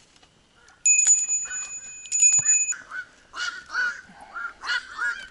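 A small bite bell on a bottom fishing rig ringing steadily for about two seconds, the sign of a fish taking the bait. Then a bird honks several times.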